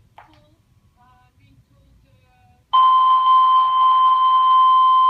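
Hotel fire alarm alert tone, the signal that an alarm is being investigated. A loud, steady two-pitch tone starts suddenly about two and a half seconds in and holds unchanged.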